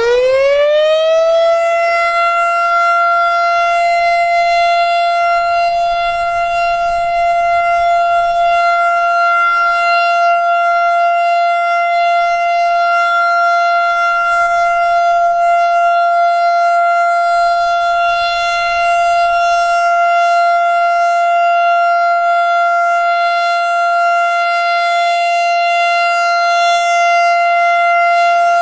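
Federal Signal STH-10 rotating siren finishing its wind-up, its pitch rising steeply for the first second or so, then holding one steady, loud tone: the Alert signal.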